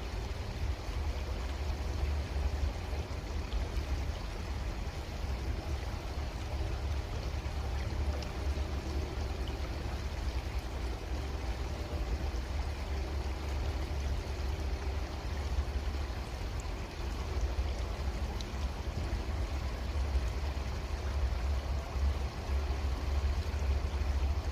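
Creek water flowing steadily, a continuous rushing and trickling, with a deep low rumble underneath.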